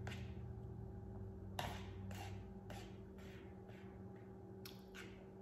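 Quiet eating sounds: a metal fork picking food off a plate, a scattering of faint clicks and short scrapes, the clearest about a second and a half in, over a steady low hum.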